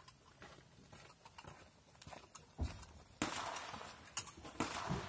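Footsteps on gravel coming closer, faint at first and louder from about halfway through, then rustling and a few sharp clicks close to the microphone.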